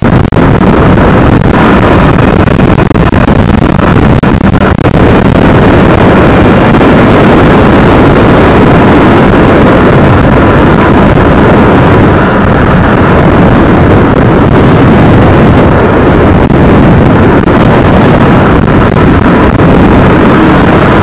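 Steady, very loud rush of wind on the microphone and road noise from a moving motorcycle, with the engine running underneath.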